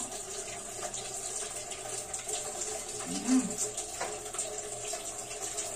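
Steady hiss from the gas stove and steamer pot, with light clinks of metal cookware as steamed corn rice is tipped from a steamer basket into a wok. A short low sound about three seconds in is the loudest moment.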